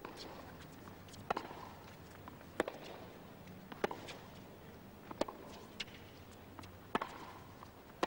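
Tennis ball struck back and forth by rackets in a baseline groundstroke rally: a sharp pop about every 1.3 seconds, six strokes in all, with fainter ticks between them.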